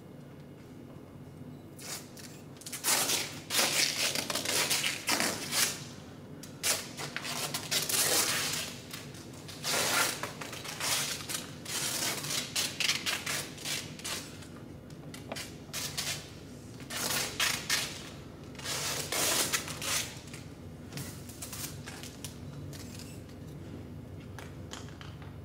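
Adhesive tape being pulled off a roll in about ten long rips with short pauses between, starting a couple of seconds in and stopping a few seconds before the end.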